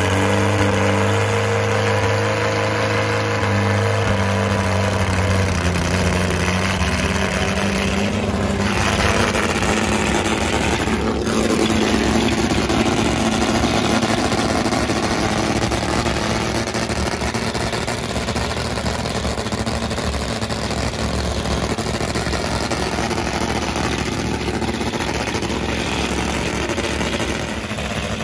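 Nitro-burning Top Fuel drag motorcycle engine running at a loud, steady idle.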